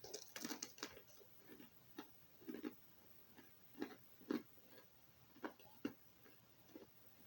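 Crunching and chewing a hard pretzel rod: irregular crisp crunches, about one or two a second.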